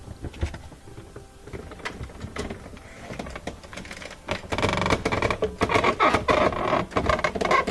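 A refrigerator's flexible freezer back panel being handled and worked into place: scattered knocks and clicks, then from about four seconds in a louder stretch of scraping and rubbing as it is pushed in at a diagonal past the rail.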